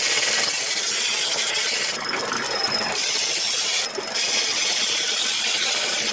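Wood lathe spinning a block of oak while a turning tool cuts into it: a steady hissing scrape of wood being stripped and shaped, with a brief break about four seconds in as the tool comes off the wood.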